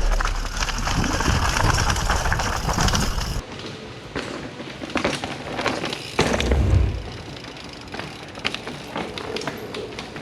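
Mountain bike on a rocky downhill trail. A loud rushing noise with a low rumble cuts off abruptly after about three seconds. After that come lighter rattles and clicks from the bike over rock, with a heavy thud a little past six seconds.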